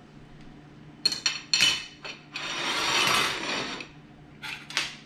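Metal forks clinking and scraping on ceramic plates: a few sharp clinks a little after a second in, a longer scrape in the middle, and two more clinks near the end.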